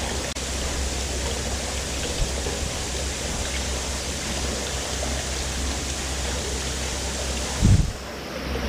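Steady rushing hiss of background noise, with a short low thump near the end.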